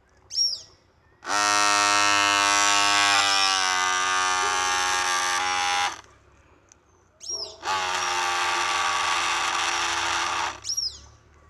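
Small electric motor of a homemade remote-control boat running in two steady buzzing runs, the first about four and a half seconds long and the second about three, each cutting off suddenly. Birds chirp briefly between the runs.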